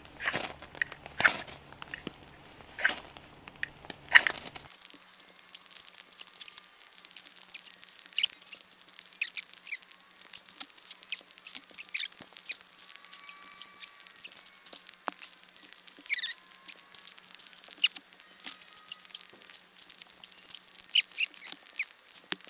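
Knife spine scraped hard down a ferrocerium fire steel over a tinder bundle: several loud, sharp rasping strikes in the first four seconds or so, then many lighter, quicker scrapes. The steel is throwing poor sparks, which the owner puts down to ridges worn into the rod.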